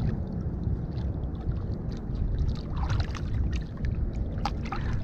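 River water lapping and sloshing against a concrete breakwater, under a low wind rumble on the microphone, with scattered small splashes and clicks in the second half.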